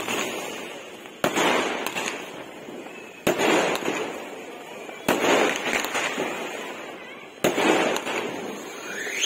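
Aerial firework shells bursting overhead: four sharp bangs about two seconds apart. Each bang is followed by a fading hiss over about a second as the stars burn out.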